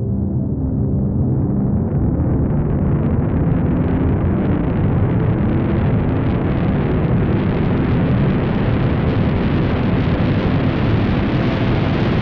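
Riser sound effect: a dense rumbling rush of noise that grows steadily brighter, as if a filter were slowly opening, at an even loudness. A few low sustained tones fade out of it in the first second.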